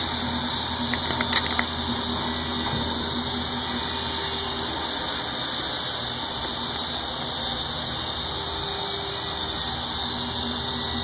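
A steady high-pitched hiss with a faint hum underneath, unchanging throughout, and one light click about a second in.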